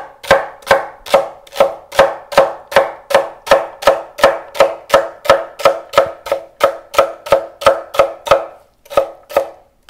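Kitchen knife slicing celery stalks on a wooden cutting board. The knife knocks on the board in a steady rhythm of about two and a half strikes a second, each with a short ringing note, and stops near the end.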